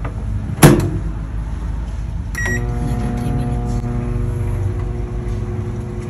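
Microwave oven: a sharp loud click about half a second in, a short beep a little before halfway, then the oven starts running with a steady electrical hum.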